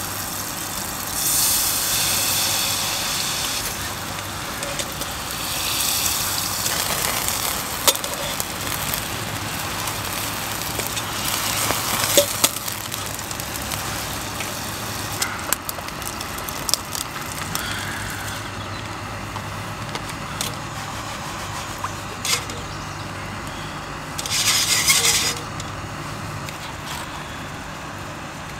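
Outdoor camp cooking: a frying pan hissing over a small gas stove, with short clinks of utensils on the pan. Several swelling swishes, like cars passing on a wet road, rise and fade over a second or two.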